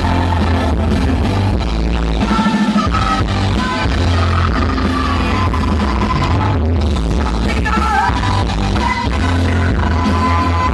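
Loud pop music with a singing voice over a heavy bass beat.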